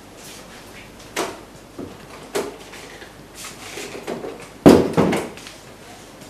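A wooden room door being opened and shut: a couple of sharp latch clicks, then a louder double knock as the door closes past the middle.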